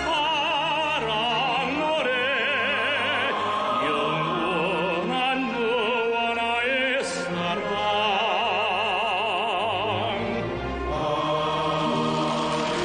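Music: a singer holding long notes with wide vibrato, in an operatic style, over instrumental accompaniment.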